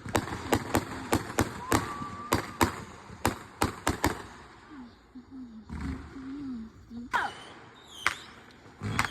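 Fireworks going off in a rapid, irregular string of sharp bangs for about four seconds, followed by voices.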